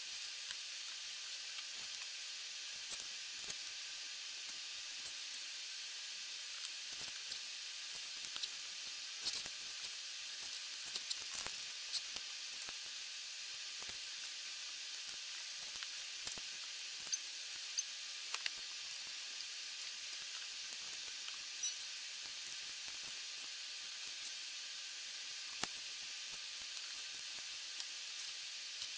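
Plastic Lego bricks clicking and tapping as they are picked up from a table and snapped onto a small model: irregular sharp clicks, a few of them louder, over a steady background hiss.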